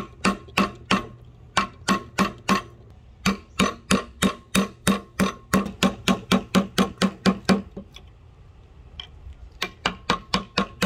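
Hammer blows striking metal with a ringing tone, about three a second, in runs broken by short pauses and a longer pause about three-quarters of the way through; typical of knocking out an old axe handle.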